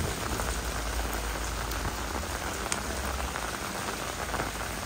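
Steady rain falling, a dense patter of drops, with a low rumble underneath.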